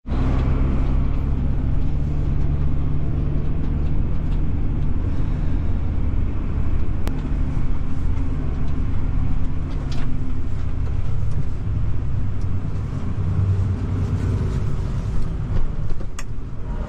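Fendt tractor's diesel engine running steadily, with a few brief sharp knocks.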